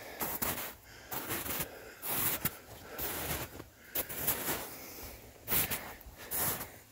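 Footsteps and rustling through brush, in irregular short bursts about every half second to a second.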